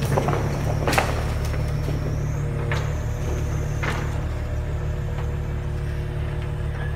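Truck engine running steadily to drive a truck-mounted crane with a hydraulic block grab, with a steady hum over it. A few sharp knocks sound, the loudest about a second in.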